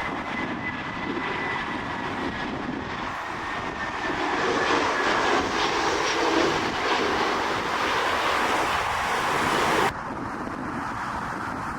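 Airbus A319 jet engines during a landing, a steady jet noise with a faint high whine that grows louder in the middle. It cuts off abruptly about ten seconds in, leaving quieter outdoor noise.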